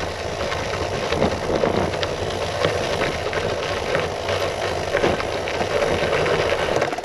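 Riding noise of a loaded touring bicycle in motion: a steady rush of wind and rolling noise with frequent small clicks and rattles.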